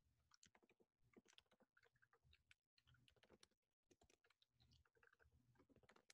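Near silence with very faint, irregular computer keyboard keystrokes as a terminal command is typed.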